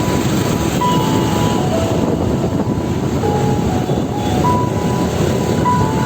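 Background music, a short stepping melody of single notes repeated twice, over a steady loud rumble of vehicle noise, like a train or traffic.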